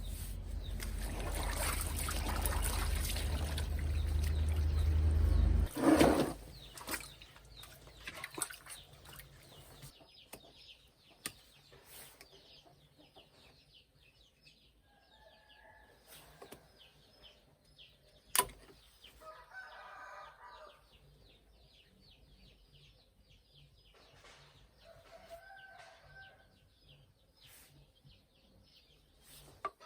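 Chickens in a farmyard: a rooster's pitched calls come four times, each about a second long, over a steady patter of small high chirps. The first six seconds hold a loud low rumble that ends with a loud knock.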